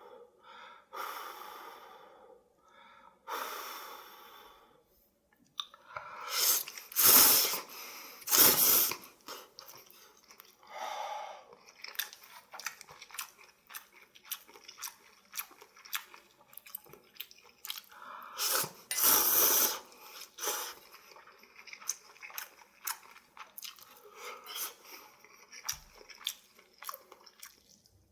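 Spicy instant ramyun noodles being eaten close to the microphone: a few loud slurps of noodles, with many small, quick chewing clicks between them.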